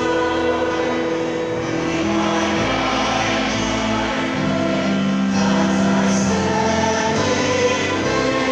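Choir singing a hymn in long held chords that change every second or two, at a steady level.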